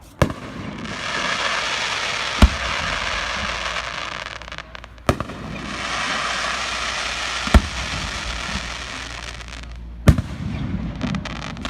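Fireworks display: five sharp shell bursts about two and a half seconds apart. Long stretches of dense crackling fill most of the gaps between them.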